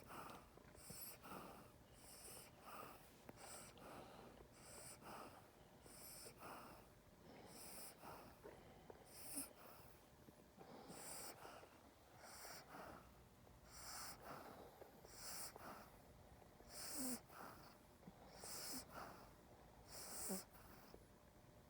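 A dog snoring with wheezy, snorting breaths that come in a steady rhythm about every second and a half, with a few short squeaky notes in the second half.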